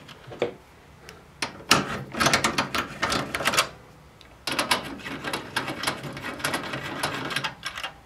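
Captive thumbscrews on a Sun Fire V480 server's CPU board being unscrewed by hand, giving rapid mechanical clicking in two runs of two to three seconds each, with a short pause between.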